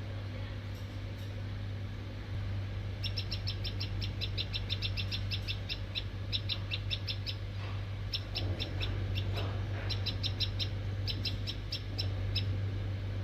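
Small birds chirping in fast runs of short, high chirps, about eight a second, coming in several bursts from about three seconds in, over a steady low hum.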